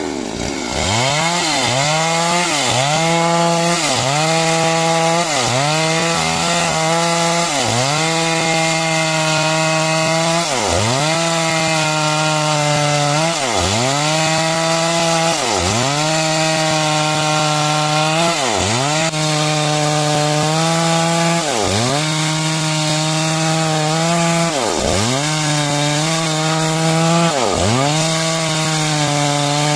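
Chainsaw running at high speed while cutting timber into beams. Its pitch dips sharply and climbs back about every two seconds as the chain bites into the wood under load.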